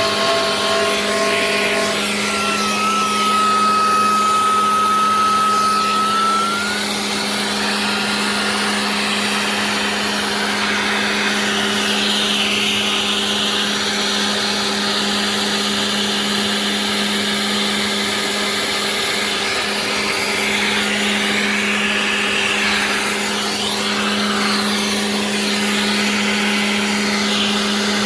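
Genmitsu 3020 PRO MAX CNC router's spindle running with a steady hum, under the changing whoosh of the bit cutting. A high whine sounds for a few seconds near the start.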